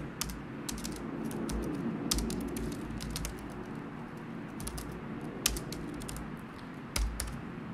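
Typing on a computer keyboard: irregular key clicks, with two louder clicks, one about five and a half seconds in and one about seven seconds in.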